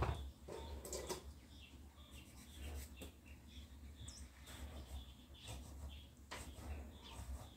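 Small kitchen knife slicing a tomato and tapping a cutting board in scattered knocks, the loudest right at the start, with small birds chirping in the background.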